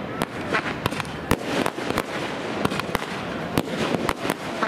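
Fireworks going off in the sky: many sharp bangs and cracks at irregular intervals.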